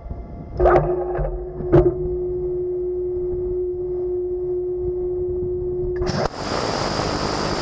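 Mk 45 5-inch naval gun mount humming steadily, with two sharp metallic clanks about a second apart early on as it cycles. About six seconds in, a sudden loud blast of flattened, rushing noise as the gun fires.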